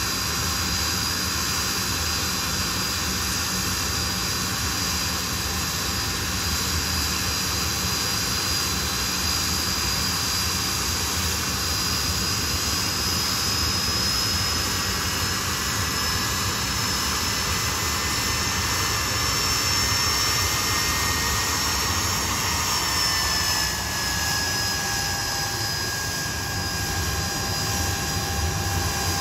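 Blackburn Buccaneer's twin Rolls-Royce Spey turbofans running at low taxi power as the jet rolls slowly past: a steady high whine over a loud rushing jet noise. The whine drops slightly in pitch a little past two thirds of the way through.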